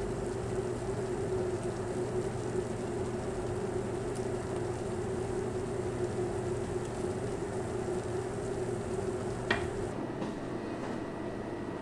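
Chicken pieces simmering in a creamy sauce in a metal pot: a steady bubbling sizzle over a low steady hum, with a single sharp click near the end.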